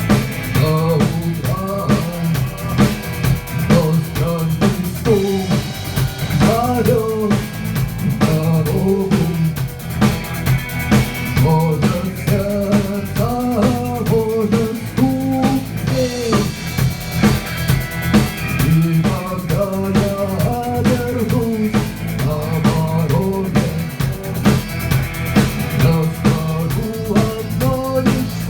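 Rock song played by a band: a drum kit keeps a steady beat with bass drum and snare, under a melodic lead line.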